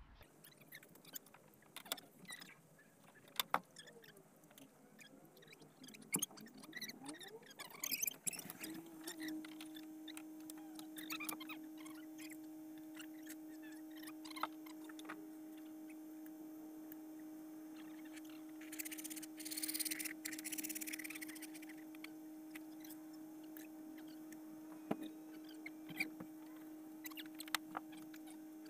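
Laminate floorboards being handled and laid on a van floor: scattered knocks and clicks as boards are set down and tapped into place. A steady low hum comes in about nine seconds in, and a short hiss is heard a little past the middle.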